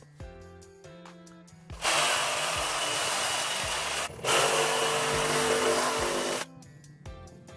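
A power tool runs in two bursts of about two seconds each, with a short break between them, over background music.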